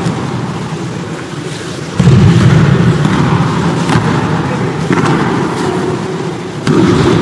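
Thuds of bodies falling onto gym mats as aikido throws land, over a steady low rumble from the busy hall. Heavier thumps come about two seconds in and again near the end, each fading slowly.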